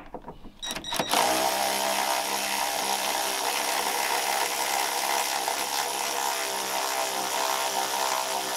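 Power ratchet spinning a suspension bolt. After a few clicks it starts about a second in and runs steadily at one even motor pitch.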